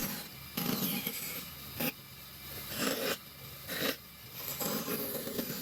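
Rasping, scraping strokes of a hand tool working wood, in several spells with short pauses between them, and a sharp click about two seconds in.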